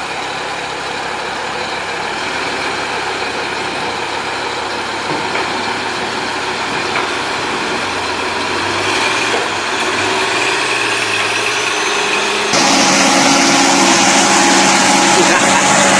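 Diesel engine of a heavy log truck running steadily as it pulls slowly under load. About twelve seconds in the sound cuts abruptly to another heavy truck's engine, louder.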